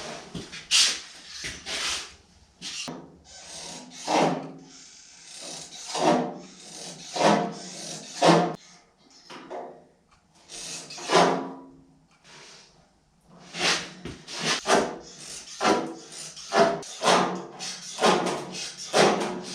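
Hand-tool work on a sheet-steel body panel: irregular rasping strokes, roughly one a second, with a couple of short pauses, as the metal is cut or dressed along a marked arc.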